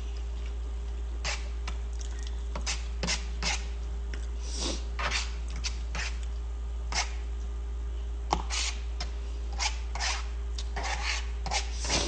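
Close-up eating sounds: irregular short clicks and smacks of chewing and a utensil on a plate, over a steady low hum.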